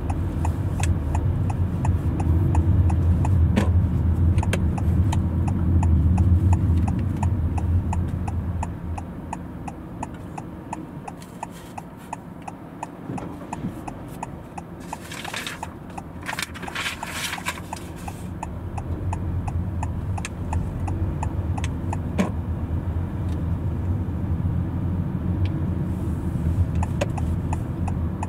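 Car interior: engine and road noise rumbling while the car moves, easing off in the middle while it waits at a crossing, then building again as it pulls away. A turn-signal relay ticks evenly throughout, with a brief rush of noise about halfway through.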